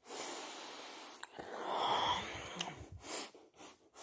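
A person breathing noisily close to the microphone while biting and chewing chocolate, the breath swelling to its loudest about two seconds in.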